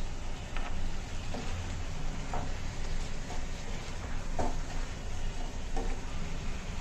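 Chicken and masala paste frying in a pan, stirred with a spoon that gives short scrapes against the pan about once a second, over a steady low hum.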